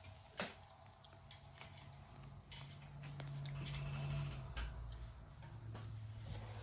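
Scattered small clicks and taps of 3D-printer kit parts, screws and an Allen key being handled, the sharpest about half a second in, over a low steady hum.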